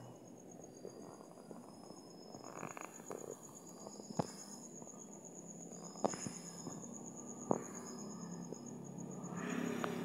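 Crickets trilling: one high, steady pulsing trill with shorter high chirps coming and going beneath it. A few sharp clicks break in around the middle.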